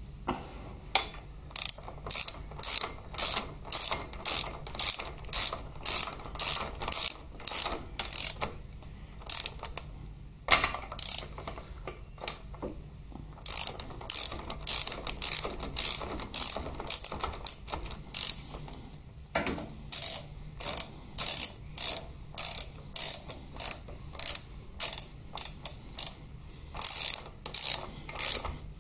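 Ratchet wrench clicking in a steady run of about two clicks a second as the socket winds a motorcycle swingarm pivot bolt tight, with short pauses near the middle.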